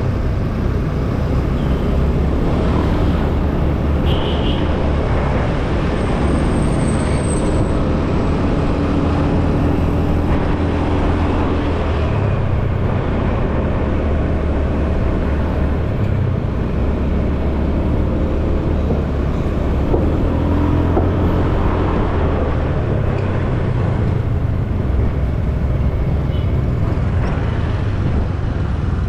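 A motorbike being ridden along a road, its engine running under a steady loud low rumble, with other road traffic around it.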